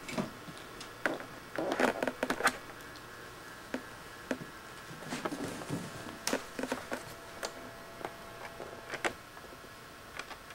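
Irregular light taps and knocks of footsteps and movement on a hardwood floor, a quick cluster of them about two seconds in and scattered ones after, over a faint steady hum.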